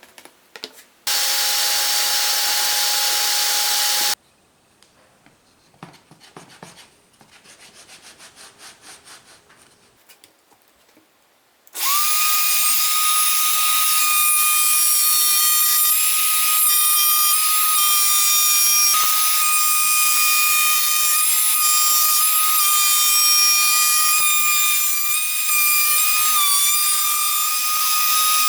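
An electric power tool working wood. It runs for about three seconds, stops, and starts again about twelve seconds in, then keeps running with a steady high whine.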